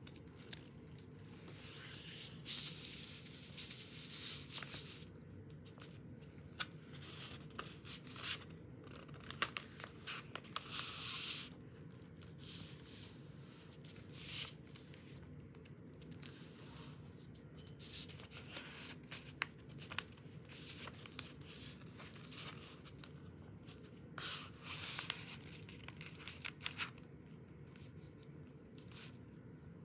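A sheet of paper being folded into a paper airplane on a wooden tabletop: irregular bursts of rustling and crinkling as folds are pressed and creased, with scattered small clicks and taps between them, over a faint steady low hum.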